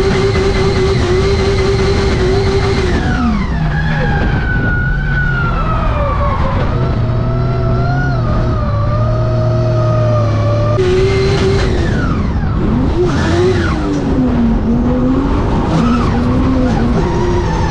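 Drift car's engine heard from inside the cabin, held at high revs, then dropping sharply about three seconds in and running lower until it revs up again at about eleven seconds, rising and falling from then on. Tyres squeal and skid under it throughout the slide.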